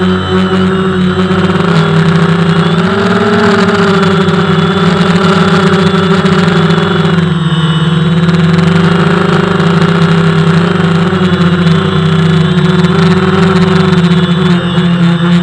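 DJI Phantom FC40 quadcopter's motors and propellers buzzing steadily in flight, heard close up from its onboard camera. The pitch rises slightly about three seconds in and eases back down around seven to eight seconds.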